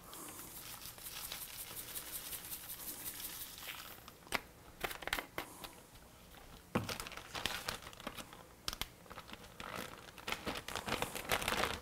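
Clear plastic zip-top bag with flour crinkling and rustling as it is opened and handled to bread turtle meat. Steady rustling for the first few seconds gives way to scattered sharp clicks and short crinkles.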